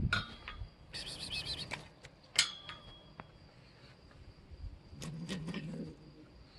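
Cats scuffling over a fish they have pulled off a pole and are dragging across concrete: scattered knocks and clicks, a short high-pitched squeal about a second in, and a low rumbling sound near the end. A faint steady high tone runs underneath.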